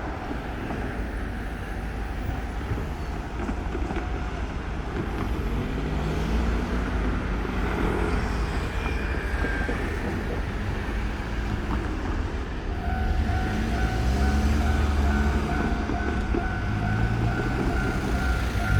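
Vehicles passing on a road. About thirteen seconds in, a Japanese level-crossing warning bell starts ringing: a rapid, evenly repeated two-tone ding signalling that a train is approaching.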